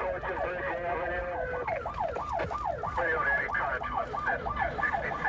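Police car's electronic siren in yelp mode, its pitch sweeping rapidly up and down several times a second.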